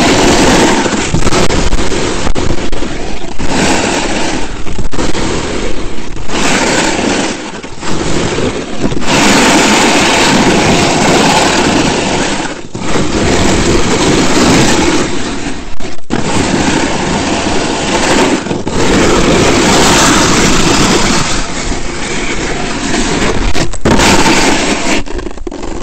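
Skis scraping over hard, icy snow on a fast descent, mixed with wind buffeting the microphone. The noise is loud throughout and drops briefly every few seconds, between turns.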